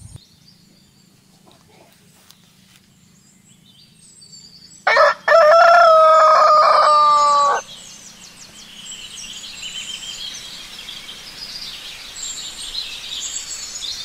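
A rooster crows once about five seconds in: a short first note, then a long held call of about two and a half seconds. After it, small birds chirp.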